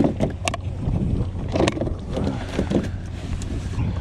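Steady low wind rumble on the microphone over a small kayak on choppy water, with a few sharp clicks and knocks about half a second in as a plastic fish-measuring board and the fish are handled.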